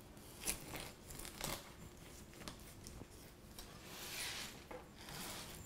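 Large chef's knife cutting lengthwise through a whole pineapple's rind and flesh. A few short cutting strokes about a second apart, then a longer one about four seconds in.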